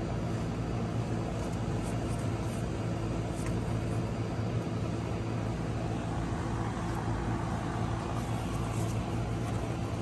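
Steady low mechanical hum with a constant drone under an even background rush, unchanging throughout.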